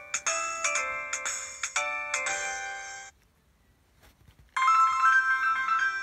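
Preloaded ringtones of a Huawei G7300 mobile phone playing: a melody of short ringing electronic notes stops about three seconds in, and after a second and a half of quiet a different melody starts.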